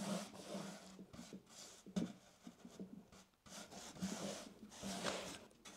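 Paintbrush strokes laying white primer onto the fluted wooden slats of a round table: faint, repeated swishing of the bristles rubbing over the ridged surface.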